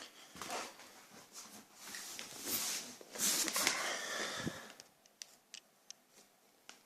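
Rustling and scraping handling noise for about four and a half seconds, then a few short sharp clicks.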